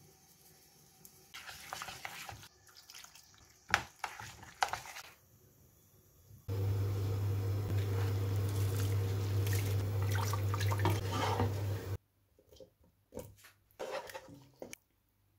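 Short kitchen sounds: a pepper grinder clicking and a spoon in a metal mixing bowl. Then a loud steady rush of a pot of boiling water as basmati rice is tipped in, over a steady low hum, cut off suddenly. Near the end come a few soft squelches of a wooden spoon stirring potatoes into a thick curry.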